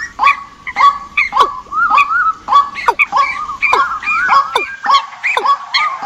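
Decoy recording of bird calls, loud and repeating about twice a second. Each call drops sharply in pitch, and other calls overlap it, as in a layered lure track of several species for trapping migrating birds.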